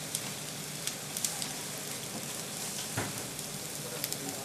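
Food frying on a hot surface: a steady sizzle with scattered crackling pops.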